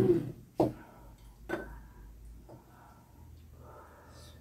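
Ceramic bowls knocking and clinking against each other and the table: a heavier knock at the start, then two sharp clinks about a second apart, the second with a brief ring.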